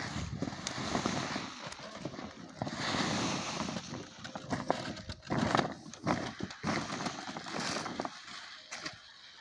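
Large woven plastic tarpaulin being lifted, shaken and dragged over the ground, rustling and crinkling with many sharp crackles.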